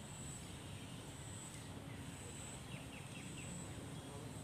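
Outdoor ambience over a steady low rumble: a thin, high insect-like trill repeats in short bursts about once a second, and a bird gives four quick descending chirps about three seconds in.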